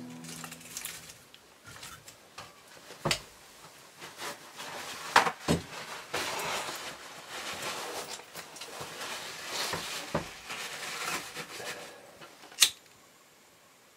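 Scattered knocks and clatter with rustling as a small wood-burning cooking stove is handled to light a fire, ending in a sharp scrape about a second before the end.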